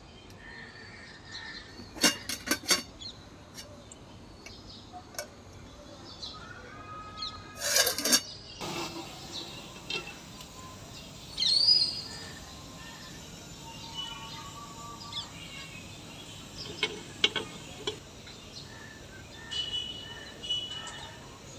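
Birds chirping in the background, with short calls and a rising call near the middle. A few sharp clicks come about two seconds in, and a louder cluster of knocks about eight seconds in.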